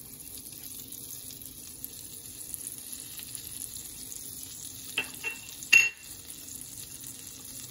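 Butter melting and sizzling steadily in a preheated nonstick frying pan. A few light clinks come about five seconds in, the sharpest and loudest just before six seconds.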